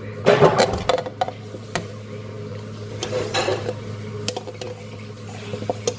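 Olives and then cherry tomatoes tipped from a cut-glass dish into a glass salad bowl: glass clinking against glass and small knocks as the pieces land, in scattered bursts.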